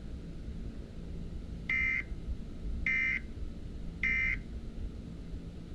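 Three short, buzzy electronic alert beeps about a second apart over a low steady hum, the tones that open a mock Emergency Alert System message.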